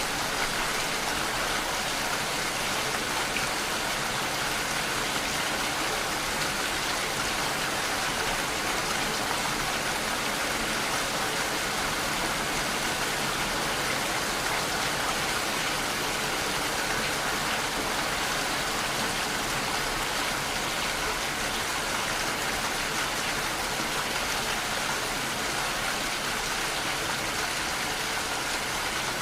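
Steady, unbroken sound of rain falling, even in level throughout.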